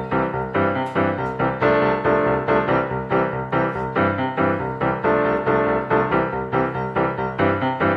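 Background music led by a piano-like keyboard, playing evenly repeated notes over a steady bass line.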